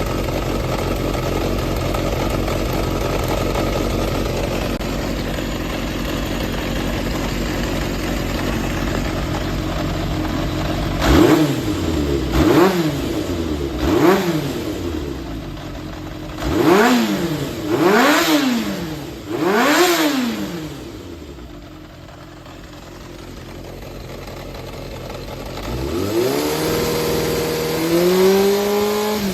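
Yamaha XJR400 air/oil-cooled inline-four engine running steadily, then revved in about six quick throttle blips, each rising and falling back, and brought up again to a held higher speed near the end. It runs without abnormal noise, in what the seller calls good condition.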